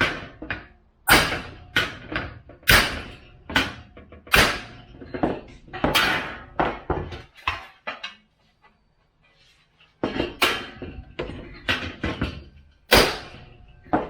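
Body hammer from a body-and-fender set striking bent sheet metal to knock out a crease, sharp ringing blows two or three a second. The hammering stops for about two seconds around the middle, then resumes.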